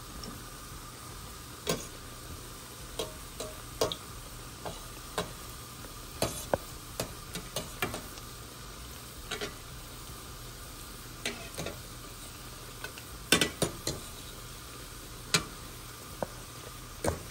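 Churro dough deep-frying in hot oil: a steady sizzle broken by irregular sharp pops and clicks.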